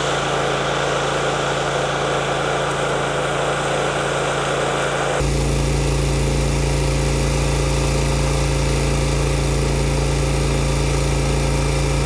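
An engine running steadily with an even hum. About five seconds in the sound switches abruptly to a louder, deeper steady engine hum.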